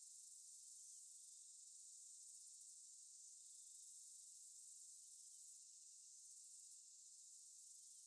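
Near silence: only a faint, steady high-pitched hiss.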